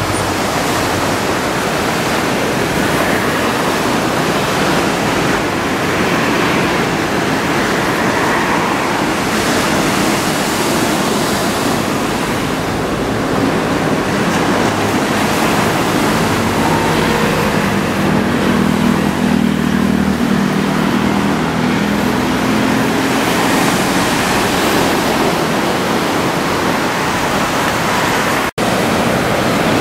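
Heavy surf from a typhoon swell breaking on the shore: a loud, steady roar of waves. A vehicle's engine hums along the coast road partway through, and the sound cuts out for an instant near the end.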